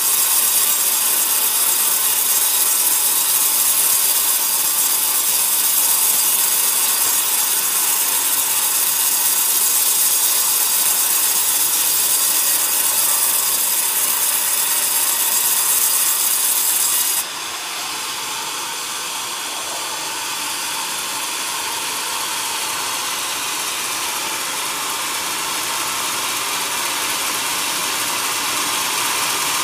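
Band sawmill blade sawing lengthwise through a coconut log, a loud steady hiss. About 17 seconds in the bright hiss stops abruptly and a quieter, steady machine running sound carries on.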